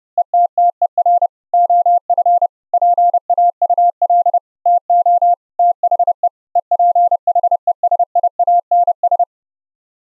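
Fast Morse code (CW) sidetone, a single steady-pitched tone keyed in dots and dashes, sent from a keyer's text file and spelling out "Paul to the Ephesians". It is heard after being carried over the internet as Opus-coded RTP audio and played on a Raspberry Pi 4. The keying stops about nine seconds in.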